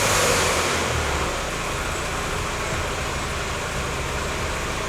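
1992 Mazda Miata's 1.6-litre four-cylinder engine idling just after starting, a little louder for the first second and a half before settling to a steady idle.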